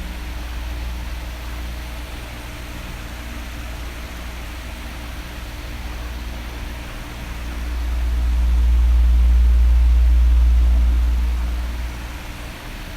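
Electric fan running steadily: a blowing hiss with a low hum. The low rumble swells louder for a few seconds in the second half, then falls back.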